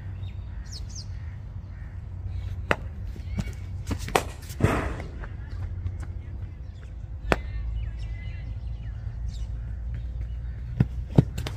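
Cricket bat striking the ball during net batting practice: a handful of sharp knocks, the loudest about four to five seconds in and two more close together near the end, over a steady low rumble.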